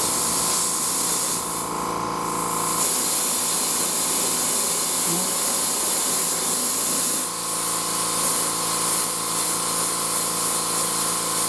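Compressed air hissing steadily as it is blown into a truck tire whose beads have not yet seated, with air escaping past the loose bead. The hiss eases briefly a couple of seconds in, then resumes.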